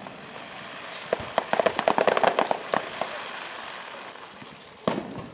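Aerial fireworks: a rapid run of crackling pops about a second in, fading out, then a single sharp bang near the end.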